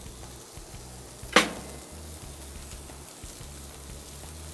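Steady low sizzle of a steak cooking on a hot gas grill, with one sharp clack about a second and a half in.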